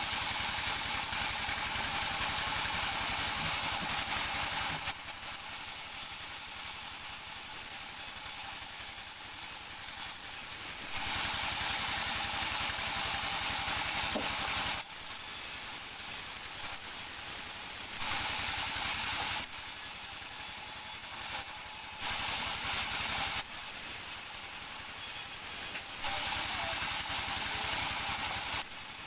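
Engine-driven sawmill saw running steadily, getting louder and hissier in stretches of a few seconds as it cuts through wood, about five times.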